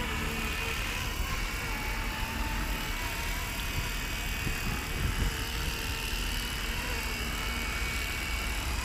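A 450-size electric RC helicopter running on its own autopilot as it descends and lands. The motor and rotor whine holds steady with a slight waver in pitch, over low wind rumble on the microphone.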